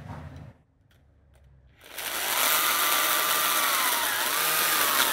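Ryobi 18V brushless pruning saw starting up about two seconds in and cutting into a log, after a short quiet spell with a few clicks. The motor and chain give a steady whine over the hiss of the chain in the wood. The pitch of the whine dips once near the end.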